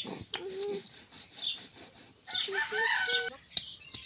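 A rooster crowing and chickens clucking, in short pitched calls about half a second in and again for about a second past the middle, with a couple of sharp knocks.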